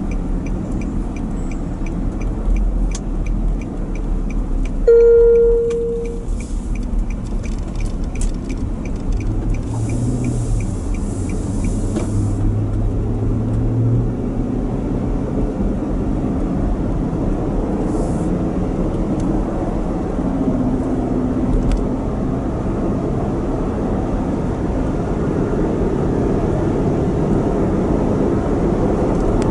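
Road and engine noise inside a vehicle towing a trailer as it speeds up onto a freeway ramp, the engine note rising for a few seconds. A turn signal ticks about twice a second until about twelve seconds in, and a single short beep sounds about five seconds in.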